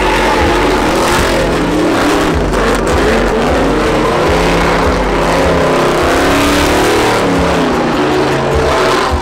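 Pickup truck engines revving hard and repeatedly, the pitch rising and falling without a break, as the trucks spin donuts in a burnout pit with their rear tyres spinning.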